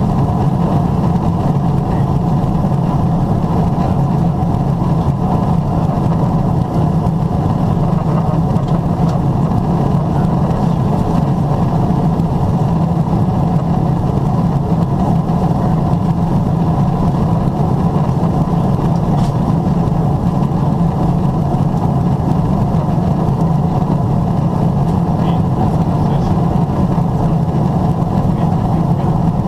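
Steady in-flight cabin noise of a Boeing 777-300ER, heard at a window seat during descent. It is a low, even hum and rush from the GE90 turbofans and the airflow past the fuselage.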